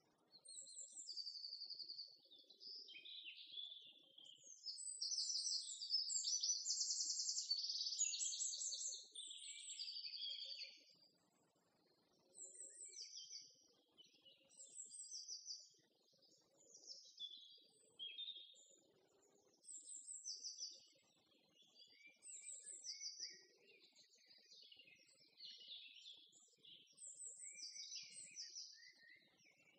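Small songbirds singing: a run of short, high, repeated chirps and trill phrases with brief gaps between them.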